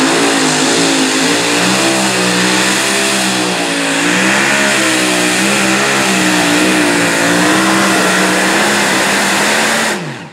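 Super modified two-wheel-drive pulling truck's engine running flat out under load as it drags the sled, its pitch wavering up and down as the truck hops with the front wheels in the air. Near the end the pitch falls and the sound drops away sharply.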